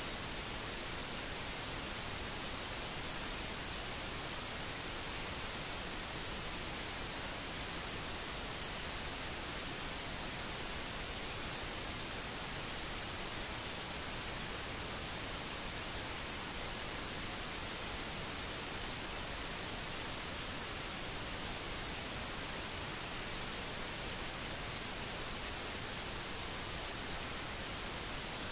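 Steady, even hiss like static, unchanging throughout, with no distinct sounds from the deer or its surroundings.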